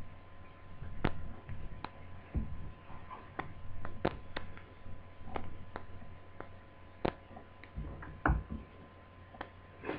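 Irregular clicks and light knocks of plastic laptop parts being handled and fitted during reassembly, with a couple of duller thuds, over a steady low electrical hum.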